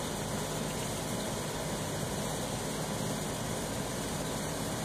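Steady background noise with a faint constant hum and no distinct events.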